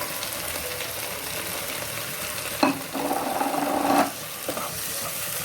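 Sliced onions frying in coconut oil in a pan, sizzling steadily as a spatula stirs them. The spatula knocks against the pan about two and a half seconds in and scrapes for about a second before knocking again.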